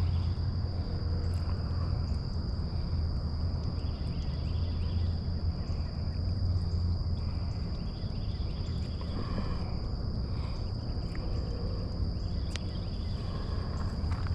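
Outdoor ambience: a steady high-pitched insect drone over a low rumble, with a few scattered light clicks and knocks.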